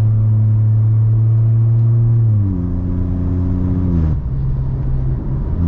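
Volkswagen T-Cross's turbocharged 1.0 three-cylinder engine revving under acceleration through an exhaust left open straight after the catalytic converter, with no muffler. The result is a loud, resonant drone. The note holds steady, then drops in pitch about two and a half seconds in and again about four seconds in.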